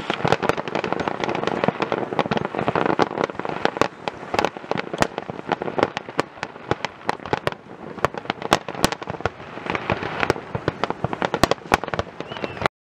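Fireworks display: a dense, continuous crackle of bursting shells with many sharp pops, thinning a little in the middle before building again, and cutting off abruptly near the end.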